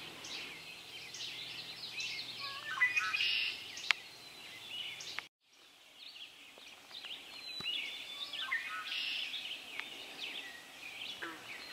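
Dawn chorus of several songbirds singing over one another, with many short overlapping phrases. The sound drops out completely for a moment about five seconds in.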